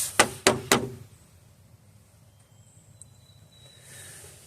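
Three sharp knocks in quick succession, all within the first second, from hand-tool work on a pickup truck's front end.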